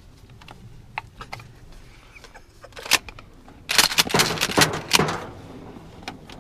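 Rustling and scattered clicks of clothing, gear and dry reeds rubbing close to the microphone as a hunter moves inside a duck blind, with a dense burst of rustling and knocks about four seconds in.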